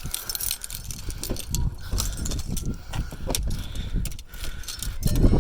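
Car keys jangling among irregular clicks and low rumbling handling noise, with a louder low rumble near the end.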